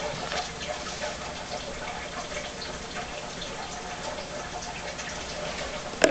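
Steady water-like trickling or bubbling noise, with one sharp knock near the end.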